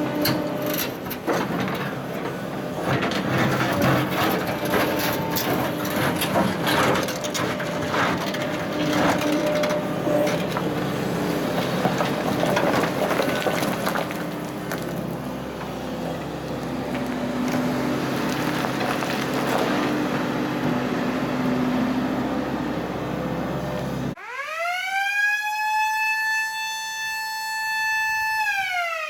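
Excavator engine running while its steel bucket scrapes and clunks through blasted granite rubble. About 24 seconds in this cuts off, and a blast warning siren winds up, holds one steady wail, and begins to wind down near the end.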